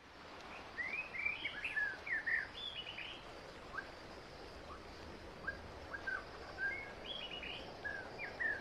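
Forest ambience of birds chirping: many short whistled notes over a steady background hiss. The sound fades in at the start, and the calls are busiest in the first three seconds and again near the end.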